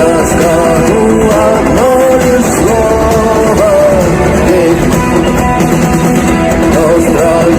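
Rock band music: guitars and a rhythm section under a melody line that bends up and down in pitch, loud and steady throughout.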